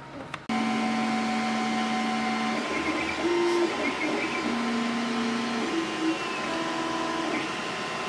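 Flashforge Creator Pro 3D printer running, starting about half a second in: its stepper motors whine at a series of steady pitches that change every half second to a second as the extruder carriage moves, over a steady fan whir.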